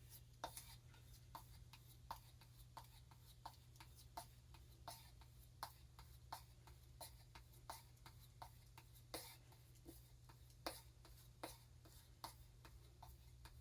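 Faint, regular strokes of a Swiss Army knife blade being drawn over a strop loaded with chromium paste, about one and a half passes a second. This is the final stropping that finishes the freshly sharpened edge.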